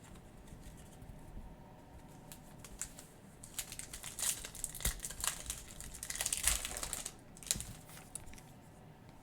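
Foil trading-card pack wrapper crinkling and tearing as a pack is opened: a run of crackles and sharp clicks starting about three seconds in, loudest around the middle, then dying down.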